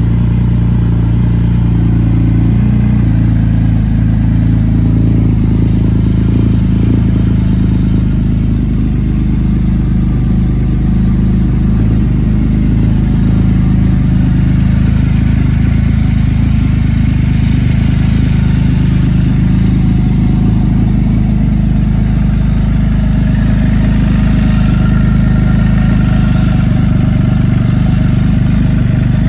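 Can-Am Spyder three-wheeler's three-cylinder engine idling steadily and loud through its exhaust.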